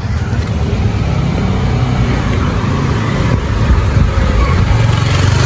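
Honda Mega Pro single-cylinder four-stroke motorcycle engine idling steadily with an even low pulse, through an aftermarket Andispeed exhaust.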